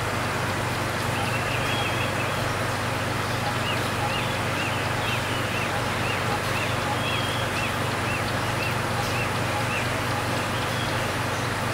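Steady hiss and low hum of aquarium air and filtration equipment, with a run of short, high chirps about twice a second through the middle.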